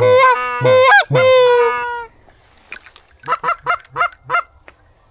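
Goose call blown by a hunter to draw in geese: three loud honks, the last one drawn out, then a quick run of about six short clucks.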